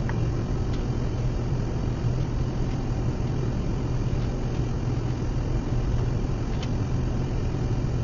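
Steady low hum with a rushing noise from the workshop's air-handling equipment, with a couple of faint clicks as the paper and sled are handled.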